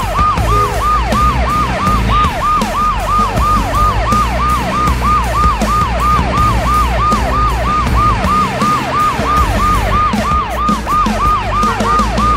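Electronic siren, a fast wail that falls in pitch and repeats evenly about three times a second, over a steady low hum.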